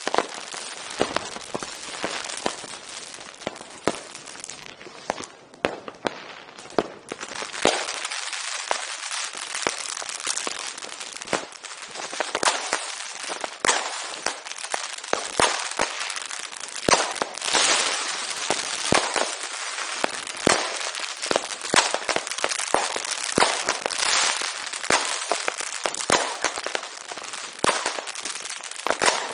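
Fireworks and firecrackers going off: a dense, continuous barrage of sharp bangs at irregular intervals over steady crackling.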